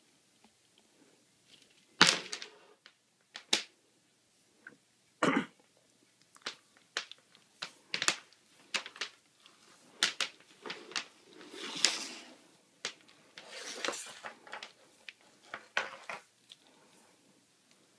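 A black cable being coiled by hand, alternating over-under loops: irregular rustles, brief swishes and light knocks as each loop is laid and the cable slaps against itself and the hand. The loudest is a sharp knock about two seconds in.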